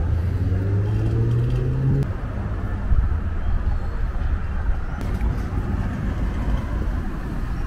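Vehicle engine rising in pitch as it accelerates for about two seconds, cutting off suddenly, then a steady low rumble of vehicle noise.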